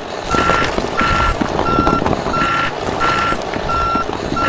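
Electronic reversing-alarm beeping, one steady tone repeating about one and a half times a second, over the clatter of miniature clay bricks sliding and tumbling out of a tipping toy dump trailer in the first couple of seconds.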